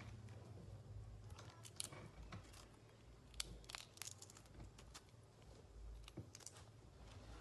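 Fingers peeling the shell off a boiled balut duck egg: faint, scattered crackles and ticks of breaking eggshell over a low steady hum.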